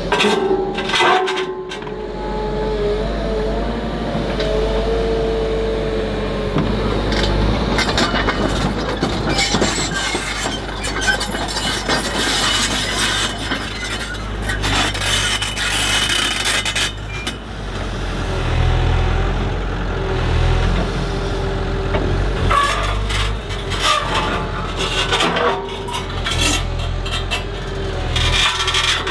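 Komatsu HB 215 LC hybrid excavator running with a steady low engine drone and a whine for the first six seconds or so, while stones grate, scrape and clink against each other in spells as the grab sets the rocks.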